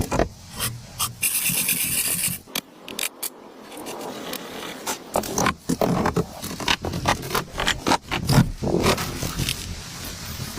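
Irregular scraping and rubbing of things being handled, with many short knocks and clicks and a brief hissing rasp about a second in.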